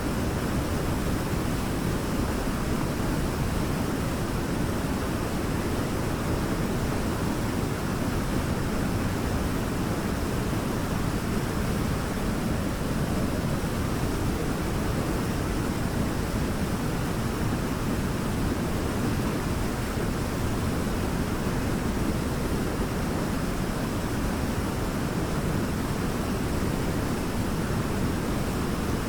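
Waterfall, water falling and rushing in a steady, unbroken noise that is heaviest and deepest in the low range.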